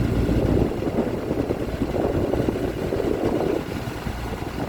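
Tour boat's engine running steadily.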